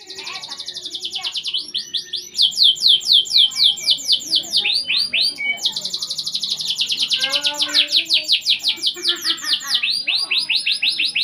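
Domestic canary singing continuously: fast trills of repeated downward-sweeping notes, switching from one trill to the next every second or two.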